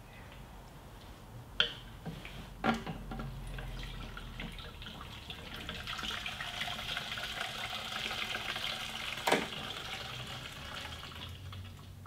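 Gasoline pouring from a plastic gas can's spout into a plastic bottle used as a temporary fuel tank: a trickling splash that builds a few seconds in and stops near the end. Three sharp knocks, the loudest sounds, come about one and a half, two and a half and nine seconds in.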